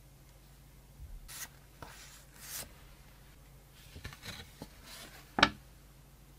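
Paper rustling and sliding under cotton-gloved hands as a folded quick-start leaflet is handled and opened out, with a sharp crisp paper snap about five seconds in.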